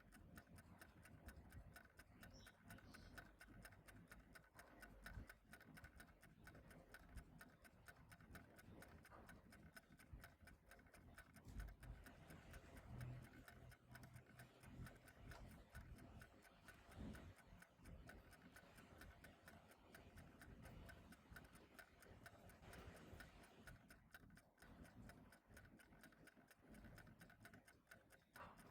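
Faint, steady ticking of a clock, with an occasional soft low thump.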